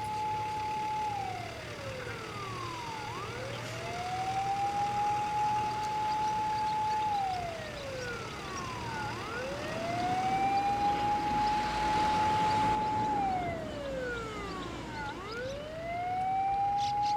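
Japanese fire engine siren wailing in slow cycles: each rises to a long held tone, then slides down, about every six seconds. A fainter second siren wails alongside, out of step with the first.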